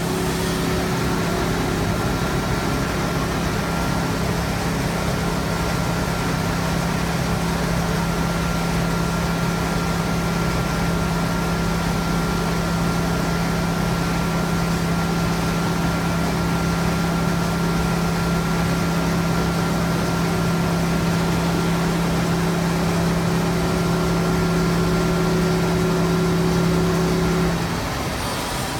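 CNC tool grinding machine running steadily under test: a constant motor hum with a faint higher whine over a hiss of machining noise. The hum and whine cut out near the end.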